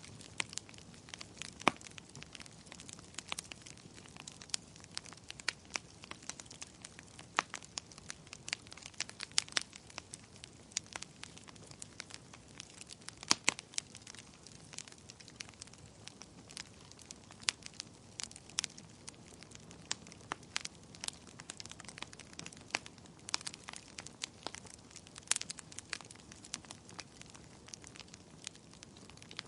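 Fire crackling, with irregular sharp pops and snaps over a low hiss.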